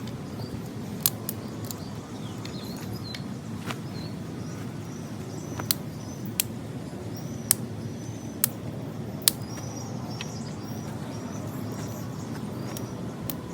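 Small wood fire burning, with sharp crackles and pops every second or so over a steady low hiss of the flames; faint bird chirps high above it.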